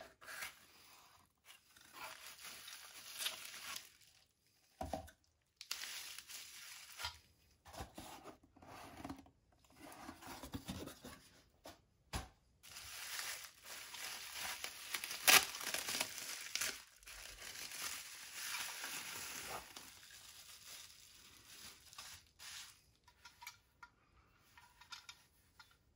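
Cardboard mailer box torn open by hand, then plastic bubble-wrap packaging and a fabric pouch rustled and crinkled. The noises come in a string of short tearing, scraping and crinkling bursts with brief pauses, and a sharp snap about fifteen seconds in is the loudest.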